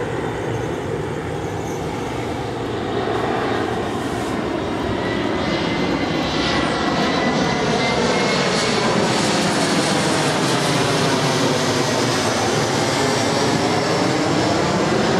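Aircraft flying low overhead: a steady engine rumble with a slowly sweeping, shifting tone, growing louder over the first few seconds and then holding.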